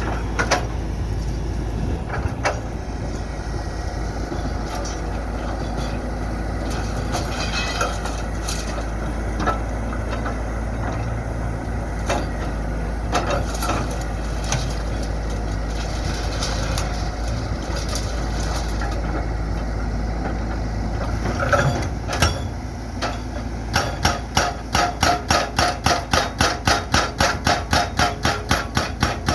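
Sany excavator's engine running under load, with scattered clanks and knocks of metal and broken concrete. Near the end a hydraulic breaker starts hammering the concrete in a fast, even series of blows, about five a second.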